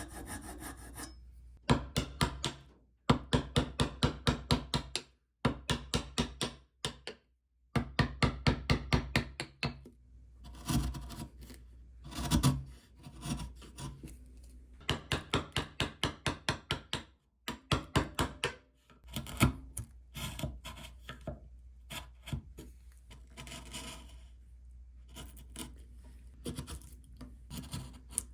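Hand tool working wood in quick back-and-forth strokes, about five a second, in runs of one to two seconds with short pauses between; a few slower single scrapes come in the middle.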